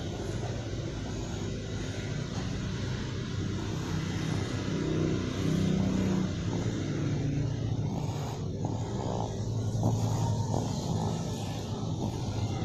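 A small child snoring in sleep: a low, rough snore that swells and fades gently with the breaths.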